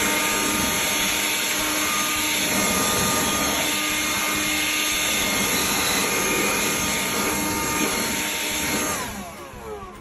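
Electric blower running steadily at full speed, a high motor whine with rushing air, its nozzle blasting dust out of a refrigerator's condensing coil. About nine seconds in it is switched off and winds down, the whine falling in pitch.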